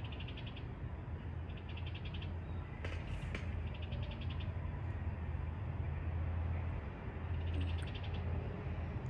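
An animal chirping: short, rapid trills, each about half a second long, come four times, over a steady low background hum.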